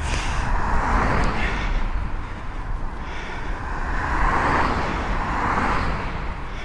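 Two cars passing close by in the opposite direction, the first about a second in and the second between four and five seconds in, over a steady low rumble of wind on the camera microphone.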